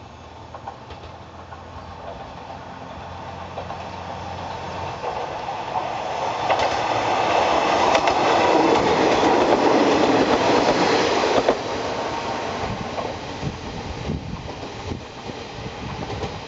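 Kanto Railway KiHa 2300 series diesel railcar set approaching with its diesel engine droning, then passing close by with wheels clicking over the rail joints. It is loudest from about six to eleven seconds in, drops suddenly as the last car goes by, and fades as it moves away.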